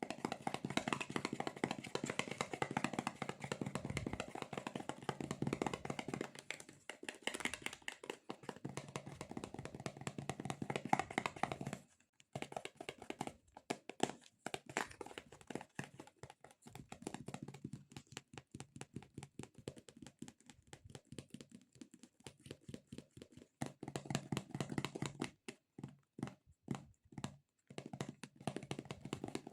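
Rapid fingertip tapping and sticky squishing on soft squishy stress-relief toys: a dense run of quick taps for about twelve seconds, then sparser taps with short pauses.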